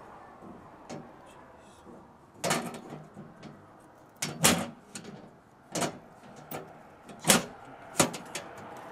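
Sharp metal clicks and knocks from an outdoor electrical breaker panel being handled, its breaker switches and cover door. The knocks come at irregular intervals, several of them, loudest about halfway through and twice near the end.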